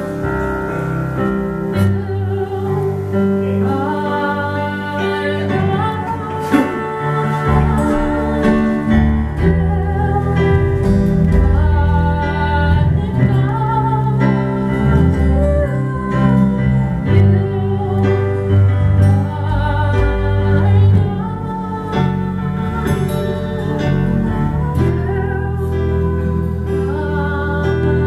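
Small live band playing a song: a woman singing over electric keyboard and strummed acoustic guitar, with steady low bass notes underneath.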